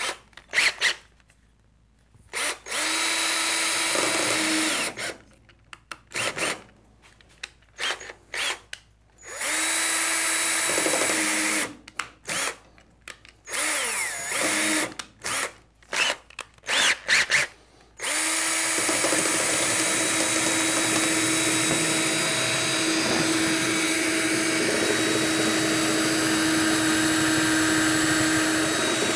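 Cordless drill pushing a small pilot bit into the steel lock of a vending machine. It starts and stops in short spurts with pauses between, then runs steadily for about the last eleven seconds. The bit is making little headway in the hardened, double-bitted lock.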